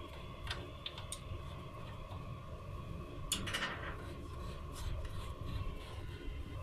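Faint clicks and rubbing as the brass nut of a refrigerant charging hose is hand-threaded onto an outdoor AC unit's service valve port, with a brief noisy burst about halfway through.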